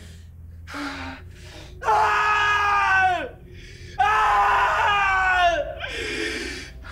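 A woman screaming in anguish: two long, high screams about two seconds apart, each dropping in pitch at its end, then a shorter, breathier cry near the end.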